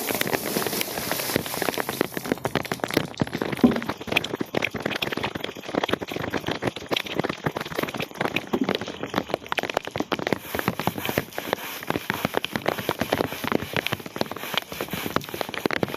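Rain falling steadily, a dense patter of many small drop impacts.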